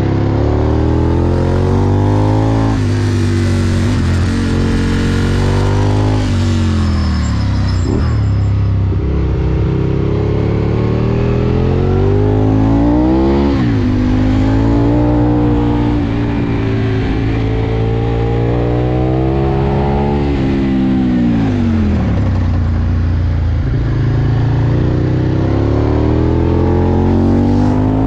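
Aprilia Tuono V2's V-twin engine heard from on board, accelerating and easing off again and again. Its note climbs with the revs, drops sharply at a gear change about halfway through, and falls away twice as the throttle closes.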